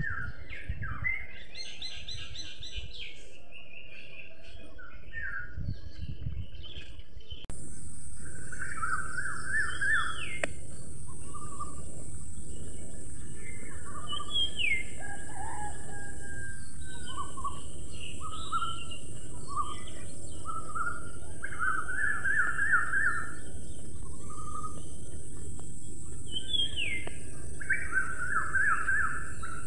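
Small birds chirping and singing in short, repeated phrases of rapid trills and rising and falling notes. About seven seconds in, the sound jumps louder and a steady high hiss joins under the birdsong.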